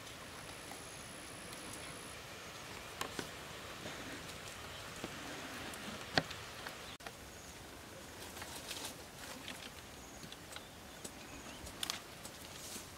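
Quiet outdoor background with scattered light knocks and scrapes of a wooden stick against stones and dry ground; the sharpest knock comes about six seconds in, with a flurry of small clicks later on. A thin high whistle sounds briefly near the start.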